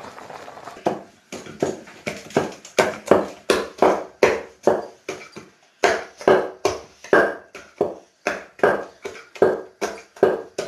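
Cooked plantain being pounded with a wooden pestle in a wooden mortar: a steady run of knocking thuds, about two strokes a second, starting about a second in.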